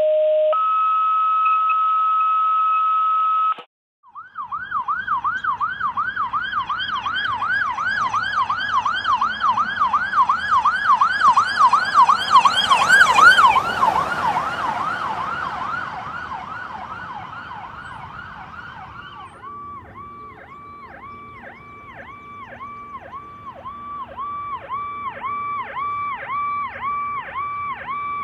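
A two-tone dispatch alert opens, a short low beep followed by a longer higher one. Then the fire chief's car passes with its electronic siren sweeping rapidly up and down, about three sweeps a second, getting louder as it nears and dropping in pitch and fading after it passes. From about two-thirds of the way in, the approaching fire engine's siren comes in with a different evenly repeating sweep, slowly growing louder.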